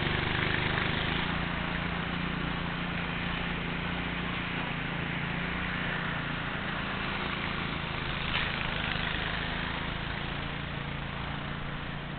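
An engine running steadily, a low even hum under a continuous hiss, with a short knock about eight seconds in.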